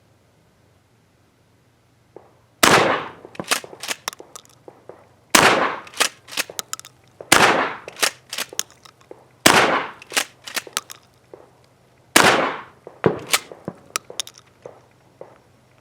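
Five shots of 00 buckshot from a Mossberg 590A1 12-gauge pump-action shotgun, fired about two to three seconds apart. After each shot comes a quick cluster of sharper clacks as the pump is worked to chamber the next shell.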